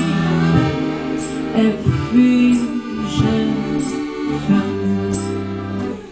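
A woman singing to accordion accompaniment, the accordion holding sustained chords under the melody.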